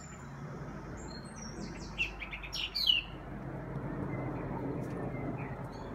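Songbird singing, a quick burst of high chirping phrases about two seconds in, over a steady low rushing noise.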